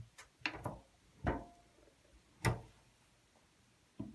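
A handful of sharp metallic clicks and knocks, the loudest about two and a half seconds in: a brass rifle case and a single-stage reloading press being handled as the case is set into the press's shell holder for full-length sizing.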